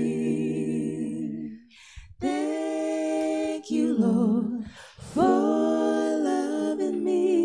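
A worship team of men's and women's voices singing a cappella, holding long chords with vibrato. The singing breaks off briefly twice, about two and five seconds in, between phrases.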